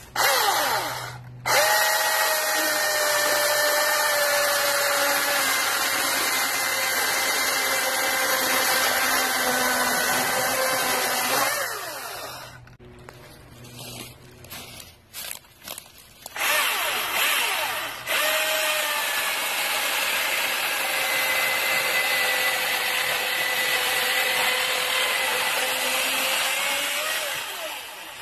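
Milwaukee M18 Fuel 16-inch cordless brushless chainsaw running at full speed and cutting through a log in two long passes of about ten seconds each. Its motor whine dips in pitch as the chain bites into the wood. In the gap between the passes there are a few short blips of the trigger.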